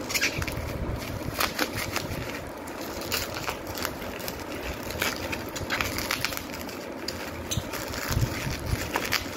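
Bubble wrap crinkling and crackling as hands pull plastic body-wash bottles out of it, in many irregular crackles.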